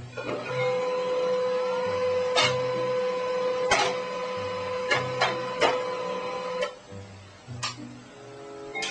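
A machine's steady whine with a low hum, broken by several sharp clicks; the whine stops about six and a half seconds in.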